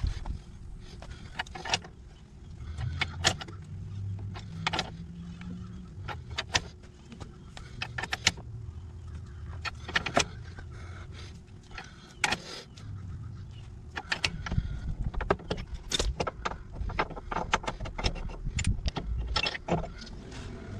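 Sharp metal clicks and clanks at irregular intervals from working a C-frame ball joint press to push out the lower ball joint of a Jeep Cherokee XJ's steering knuckle, over a low rumble that comes and goes.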